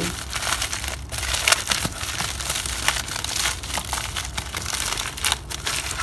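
Packaging wrap being crumpled and handled off-camera, a continuous irregular crinkling and crackling.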